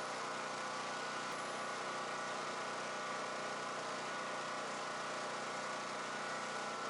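Champion dual fuel portable generator's single-cylinder engine running steadily on propane.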